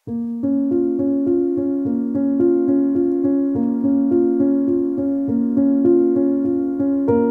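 Background music: a gentle keyboard tune of steady piano-like notes, starting suddenly out of silence.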